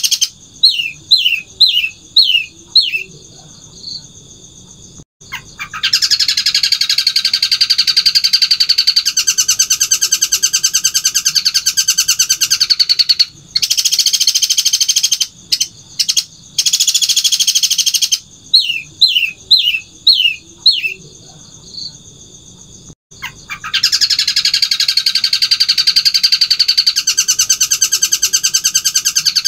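Long-tailed shrike (cendet) singing. It gives a run of about six quick, falling whistled notes, then a long, very fast rattling trill that lasts around seven seconds. The same pattern comes round a second time about halfway through.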